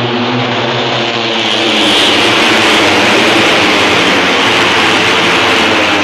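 Racing motorcycles passing at speed on the circuit, their engines loud and at high revs. The sound swells about a second and a half in and stays loud.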